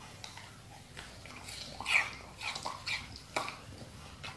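Siberian husky eating watermelon flesh from a half rind: a run of short, wet chewing and lapping smacks, loudest about two seconds in, ending with a sharp click.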